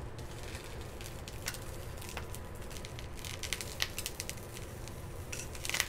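Ears of corn sizzling in a hot skillet with olive oil, a steady hiss with many small crackles and pops, thickest from about three to four seconds in and again near the end.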